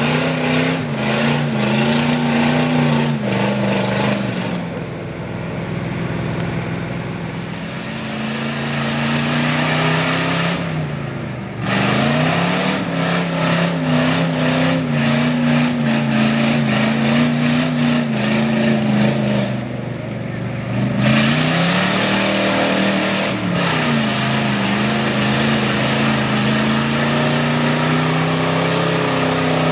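Lifted Ford mud truck's V8 engine revving hard through a mud pit, its pitch rising and falling. The revs sag briefly about 11 seconds in and again around 20 seconds, then climb back up.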